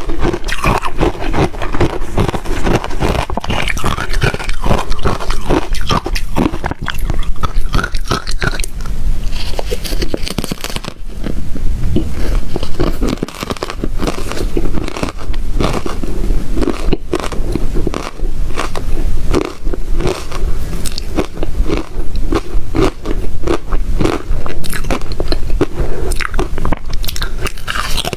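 Close-up biting and chewing of rectangular ice chips coated in matcha powder, a continuous run of loud, sharp crunches and cracks.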